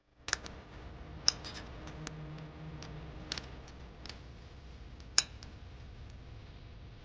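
A few sharp, light clicks and taps, scattered irregularly about a second apart, over a faint steady low hum.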